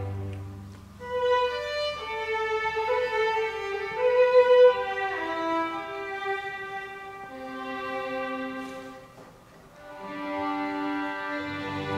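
A string orchestra of violins, violas, cellos and double basses playing a violin melody in held notes. The cellos and basses drop out about a second in, the music softens briefly about nine seconds in, and the low strings come back in near the end.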